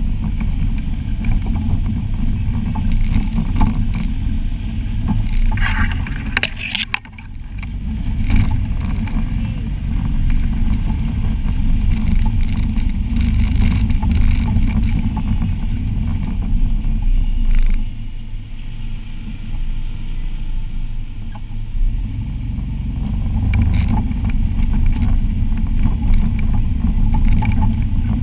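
Side-by-side UTV engine running steadily on a rough dirt trail, with scattered knocks and rattles from the chassis and the ground. The engine drops off briefly about seven seconds in.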